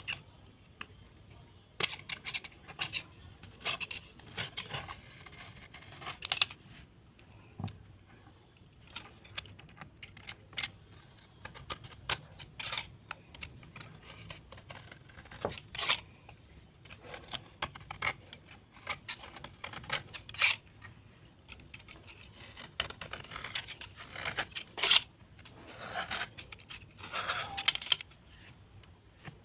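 Irregular crisp cracks and crunches with stretches of gritty scraping, like pieces of soaked earthy slate being broken and rubbed by hand.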